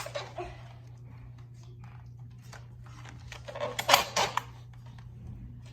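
Nerf Stegosmash dart blaster handled with a few light plastic clicks, then a quick cluster of sharp plastic clacks about four seconds in as it is primed and fired.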